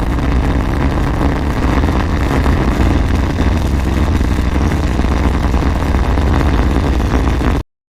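Rocket engines at launch: a loud, steady, deep roaring noise, heaviest in the low end, that cuts off suddenly near the end.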